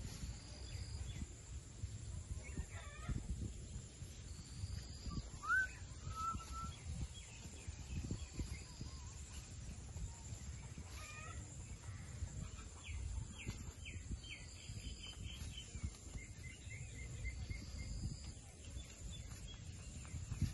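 Blue Indian ringneck parakeet giving scattered short chirps and rising whistled notes, with a quick run of chirps about two-thirds of the way through, over a low background rumble.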